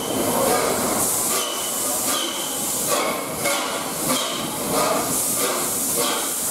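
LNER A3 Pacific steam locomotive Flying Scotsman, a three-cylinder engine, working steam as it moves through the station. Its exhaust chuffs come in a steady rhythm of hissing beats, echoing under the train shed roof.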